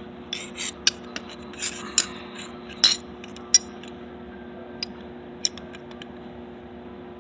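Light metallic taps and clinks, about a dozen scattered over five seconds, with some scraping in between: metal parts of a Hobart slicer's index knob assembly being tapped and worked into place.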